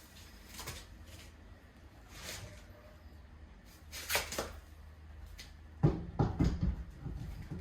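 Scattered knocks and clanks of work on a car wheel, with a quick cluster of sharp knocks about six seconds in, over a low steady hum.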